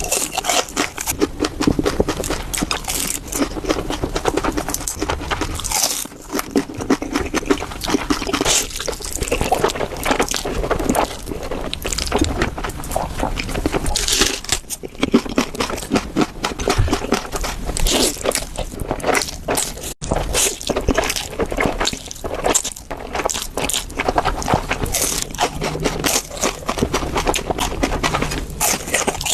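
Close-miked eating: slurping spicy noodles and crunching shrimp-flavoured cracker sticks, with steady chewing and wet mouth sounds.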